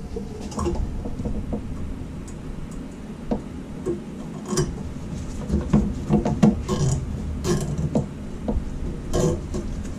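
Plastic clicking and rustling as a zip tie is worked around a wiring harness and through a push-in cable tie anchor, with small knocks of handling in the engine bay. The clicks come in bunches, the busiest about halfway through and again near the end.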